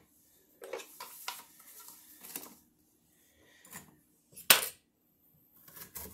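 Knife chopping carrots into chunks, a few separate cuts and knocks with gaps between them. The sharpest, loudest knock comes about four and a half seconds in.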